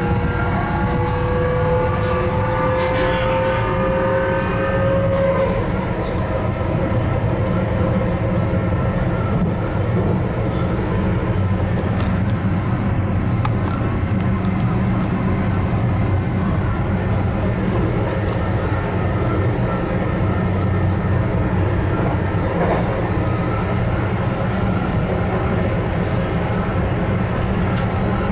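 Stadler GTW-E electric multiple unit heard from inside the passenger cabin, under way: its traction drive whines in a pitch that rises for about the first five seconds as the train accelerates, then gives way to a steady low rumble of running on the rails, with a few scattered clicks.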